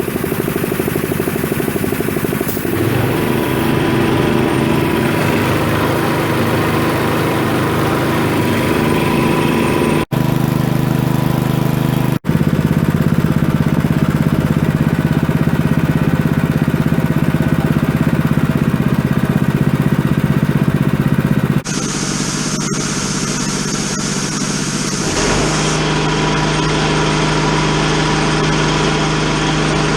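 Pull-start gasoline engine of a wheeled Rolair air compressor running steadily while it drives the pump. The sound shifts abruptly in pitch and tone a few times.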